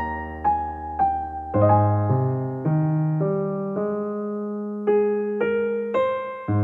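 Background music: a gentle keyboard tune of single struck notes over held bass notes.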